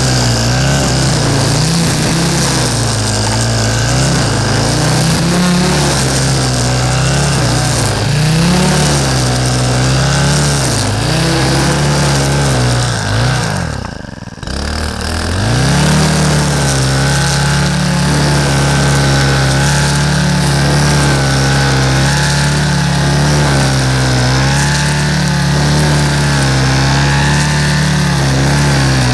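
Echo SRM-3610T brushcutter engine running under load as its line head cuts tall grass, the pitch rising and falling with the throttle. About halfway through the engine drops briefly toward idle and then picks back up, running steadier afterwards.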